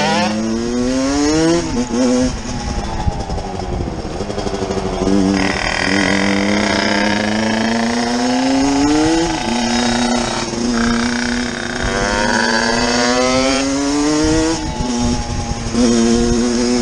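Motorcycle engine pulling up through the gears: its pitch climbs and falls back several times, holding level in between, most likely the rider's own Yamaha dirt bike.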